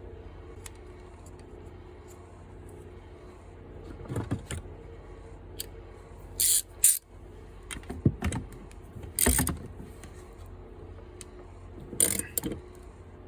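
Small carburetor parts being handled on a workbench: scattered sharp clicks and a few short, louder rustling noises, about six and a half, nine and twelve seconds in, over a steady low hum.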